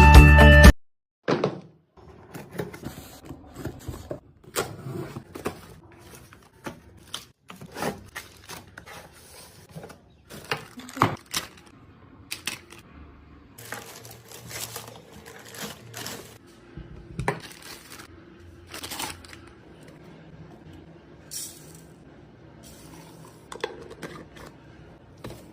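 Music cuts off under a second in, then irregular light clicks, taps and clinks of hard kitchen appliance parts being handled.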